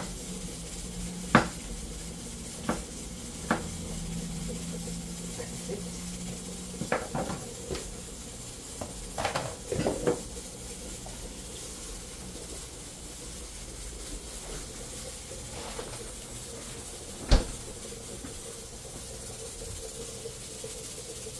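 Scattered sharp knocks of a kitchen knife on a plastic cutting board, with a short run of clattering about nine to ten seconds in and one loud knock near the end, over a steady hiss. A low hum stops about seven seconds in.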